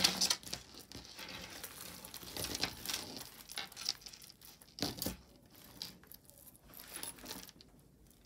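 A tangled multi-strand necklace of faceted beads, cord and gold-tone chain being handled on a tabletop, with beads and chain clicking and rustling as the strands are pulled apart. There is a sharp click at the start and another about five seconds in.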